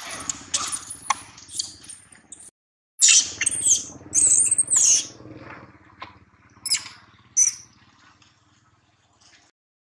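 Young long-tailed macaque giving a series of high-pitched squealing screams in short bursts, loudest a few seconds in, with two more short squeals a little later before it fades.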